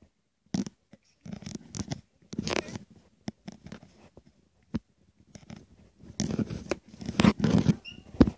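Rustling and scraping handling noise on a phone's microphone as the phone is moved and rubbed, in irregular bursts. The bursts are loudest from about one to three seconds in and from about six to eight seconds in.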